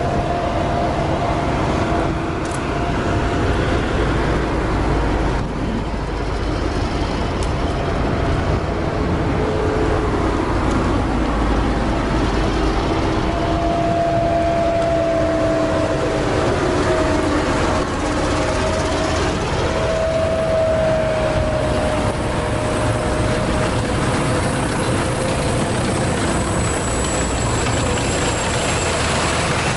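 Armored military vehicles driving by: an eight-wheeled armored personnel carrier and then a tracked tank, their heavy diesel engines running steadily under a whine that drifts slightly in pitch. Near the end the tank's tracks clatter on the asphalt.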